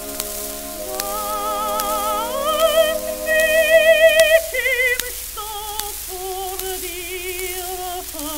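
Music: a slow melody of long held notes with a strong, regular wobble, sliding upward about two seconds in, over scattered faint clicks like record crackle.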